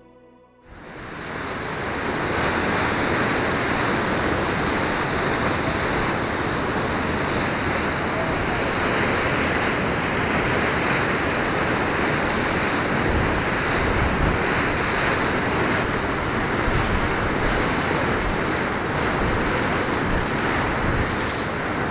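Steady rush of wind and water on the deck of a moving boat, with wind buffeting the microphone. It swells up over the first two seconds and then holds even.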